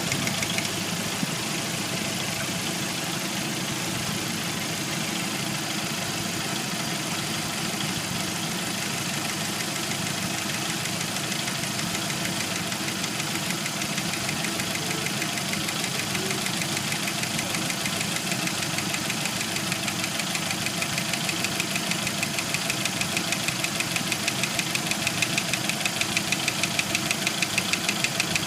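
1991 Jeep Wrangler YJ's 2.5 L four-cylinder engine idling. The knock dies away about a second in, leaving a smooth idle, then gradually comes back as a rhythmic knocking that grows louder over the last several seconds. The owner puts the knock down to a broken piston skirt and failed lifters on cylinders 2 and 4.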